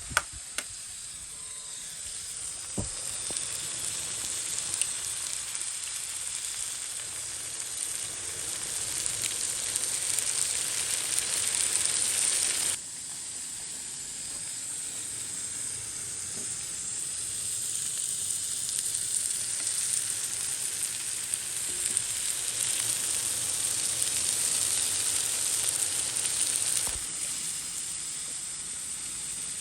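Eggs frying in hot oil in a pan, with a steady sizzle and a few light clicks in the first seconds. The sizzle drops suddenly in level about 13 seconds in and again near the end.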